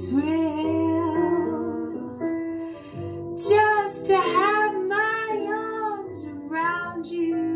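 A woman singing a slow jazz ballad, her held notes wavering with vibrato, over a soft accompaniment of sustained chords.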